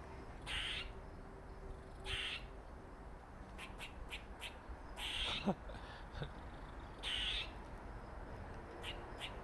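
Squirrel calling: short harsh calls, about four in all, spaced a second or two apart, with a run of quicker, fainter clicks between them near the middle.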